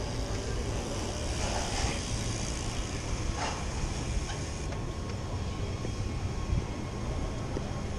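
Wind rushing over a handlebar-mounted camera's microphone and the low rumble of a mountain bike rolling over paving, with a few light rattles.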